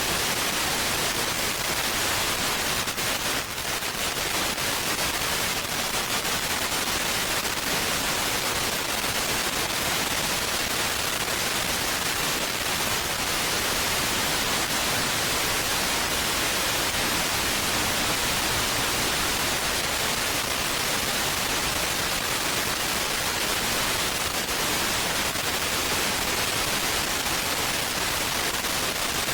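Steady, even hiss of static with no tone or motor whine in it.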